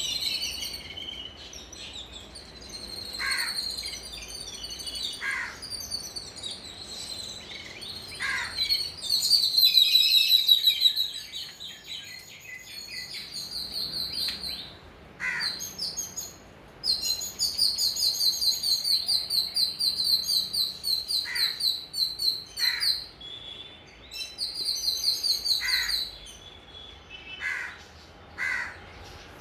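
Sparrows chirping in fast, high, repeated runs, loudest for several seconds past the middle, while crows give single caws now and then, about nine in all.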